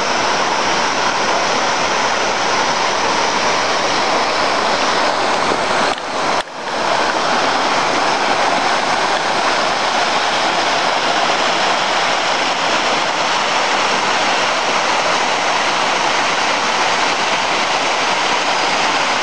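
Mountain stream rushing and splashing down over boulders in small waterfalls, a steady loud rush of water. It drops out briefly about six seconds in.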